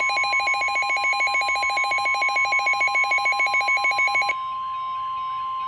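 NOAA Weather Radio's steady 1050 Hz warning alarm tone, with a weather radio's own alert beeping over it at about nine pulses a second. The beeping cuts off about four seconds in while the steady tone carries on. The alarm tone announces an emergency alert, here a Winter Storm Warning.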